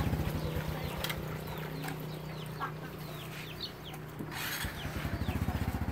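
Chickens clucking: a run of short, falling chirps over a low, steady hum.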